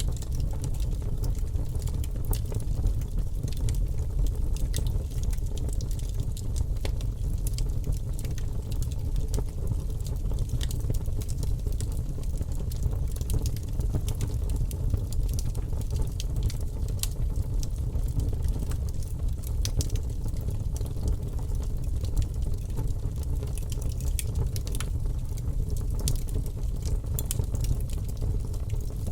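Campfire burning: wood crackling and popping in many short, sharp snaps scattered irregularly over a steady low rumble.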